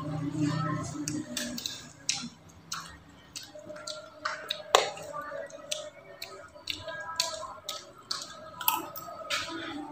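A metal spoon clicking and scraping against plates while eating, light irregular clicks with a louder one about halfway through. Faint voices run underneath.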